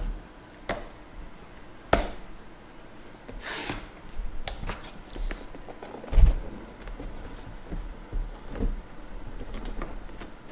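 Cardboard shipping case being handled and opened: scattered knocks and cardboard scrapes, a sharp knock about two seconds in, a rasping scrape a little later, and a heavy thump about six seconds in.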